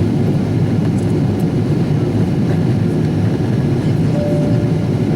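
Steady low rumble of a Boeing 777-200ER's engines and rushing air, heard inside the passenger cabin in flight.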